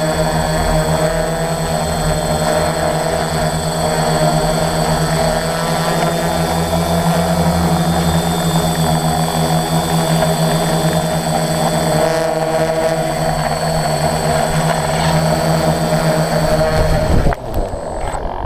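Multirotor drone's electric motors and propellers whining steadily in flight. The sound cuts off abruptly near the end.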